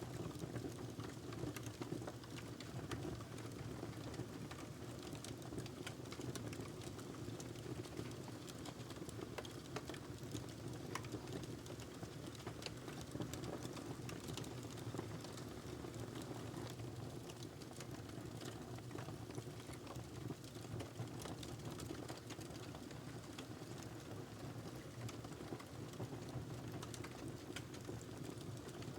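Wood fire crackling in a fireplace: scattered sharp pops and clicks over a steady low rush of burning.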